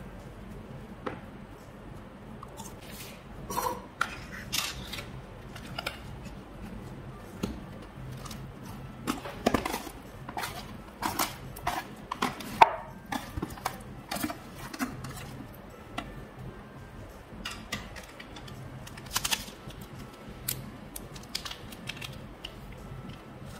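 Hands squishing, pressing and pulling a mass of fluffy and clear slime, making irregular sticky clicks and pops. A low steady hum runs underneath.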